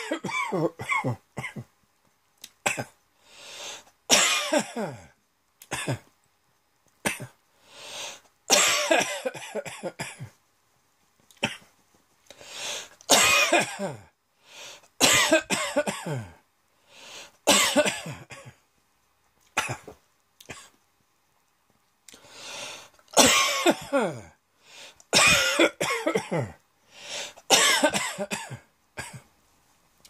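A person coughing hard in repeated fits, set off by a sudden tickle in the throat. The coughs come in runs of several at a time, with short silent gaps between the runs.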